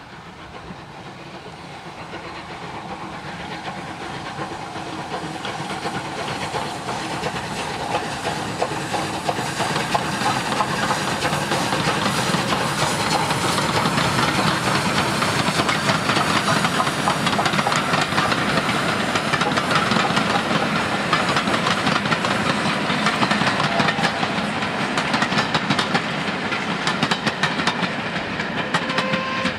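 Rebuilt Bulleid Battle of Britain class Pacific no. 34059 and its train of coaches approaching and running past. The sound grows louder over the first ten seconds or so, then holds as a steady rapid clatter of wheels over the rail joints while the coaches go by.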